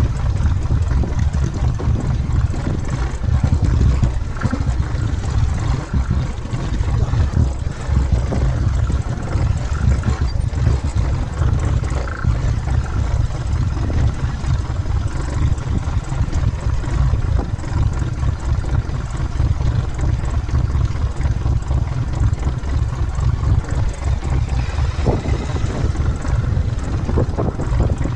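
Motorcycle engine running at low speed during a downhill off-road ride over rocky ground, picked up on the bike's own camera with a heavy, steady low rumble.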